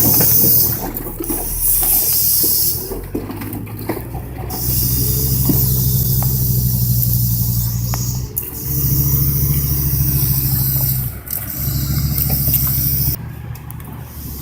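A heavy vehicle's engine working hard in three long surges, each a few seconds long, with a loud hiss over it. It drops away near the end.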